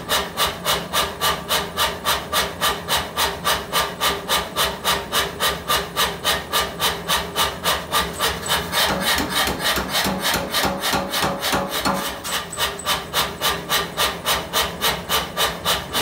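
Mechanical power hammer striking a red-hot steel bar in a steady, even run of blows, about three a second, forging an offset into the bar.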